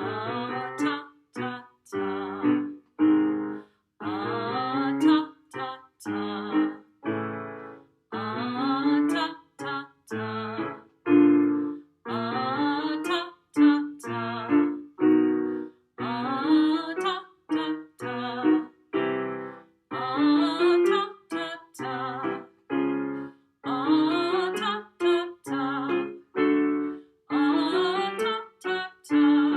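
Vocal warm-up sung on 'ah' by a woman's voice over piano accompaniment. Each phrase climbs and ends in short detached 'ta, ta, ta' notes that practise crisp T consonants, and the pattern repeats many times with brief pauses between phrases.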